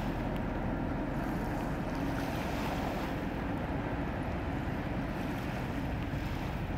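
Inland tanker motor vessel passing under way upstream: a steady low drone from its diesel engine mixed with the rush of its wake and propeller wash, with some wind on the microphone.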